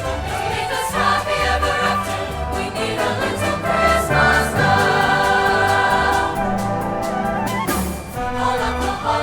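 A choir singing with orchestral accompaniment, holiday music.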